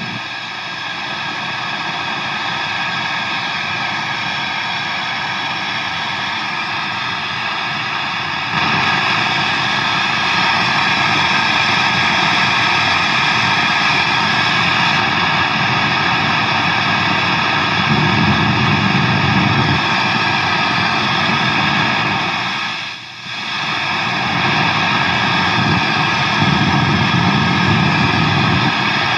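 Loud, steady static hiss from a Marshall DSL 40C valve guitar combo amp. It gets louder about a third of the way in and dips briefly about two-thirds through. The static is a fault on a brand-new amp.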